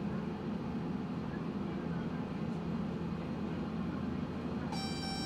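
Tosaden streetcar running, a steady low rumble heard from the front of the car. A short tone sounds briefly near the end.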